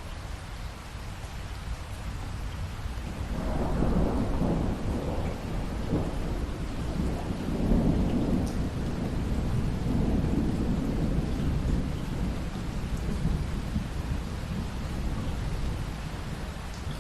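Steady rain with a long roll of thunder that swells about three seconds in, rumbles on for several seconds and slowly fades.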